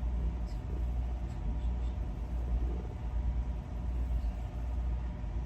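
A steady low rumble with a faint hum over it, unchanging throughout.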